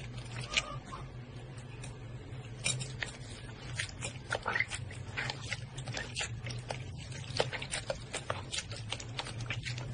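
Slime being worked by hand, making irregular sticky clicks and pops over a low steady hum.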